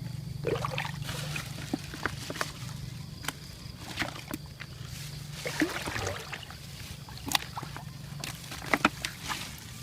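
Water sloshing and splashing with scattered sharp knocks, typical of handling a net in shallow floodwater, over a low steady hum that stops a little past halfway.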